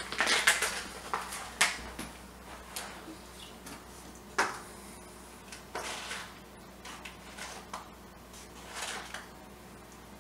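Scattered light knocks, clicks and short rustles, the loudest in the first second, over a faint steady hum.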